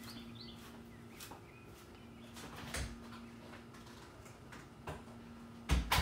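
A few sudden knocks and thuds, one about halfway and the loudest near the end, over a faint steady hum.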